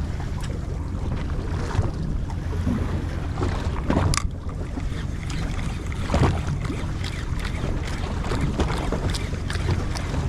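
Fishing boat's engine running steadily under wind buffeting the microphone, with a few short knocks and clicks on board, the sharpest about four seconds in.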